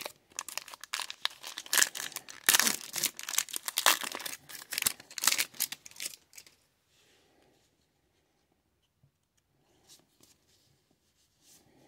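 Foil wrapper of an O-Pee-Chee hockey card pack being torn open and crinkled, a dense crackling for about six seconds. After that come only faint rustles of the card stack being handled.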